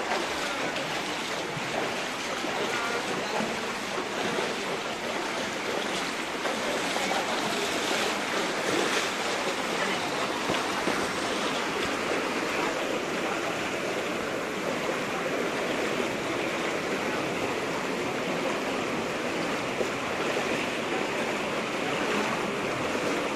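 Steady rushing of fast-flowing floodwater running through a flooded street.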